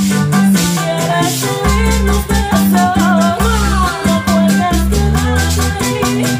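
Live bachata band playing: several women singing the melody together over a low bass line, with a fast, even scraping rhythm on top, typical of a bachata güira.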